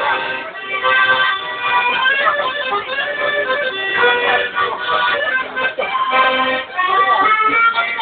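Accordion playing a tune, several notes sounding together and changing every fraction of a second.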